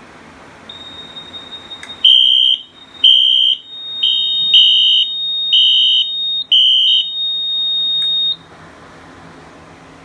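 Fire alarm control panel's piezo sounder going off for a newly tripped smoke detector: a steady high electronic tone with a louder, slightly lower beep pulsing over it about once a second, until both cut off suddenly near the end.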